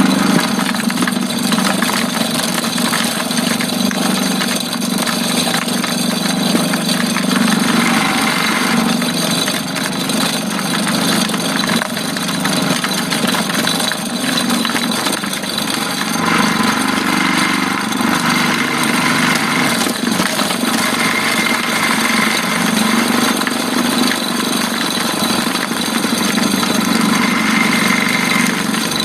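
Small engine driving a multi-purpose chopper machine, running steadily while grinding young papaya fruit, with louder rough stretches of grinding noise several times, around eight seconds in, from about sixteen to twenty-three seconds, and near the end.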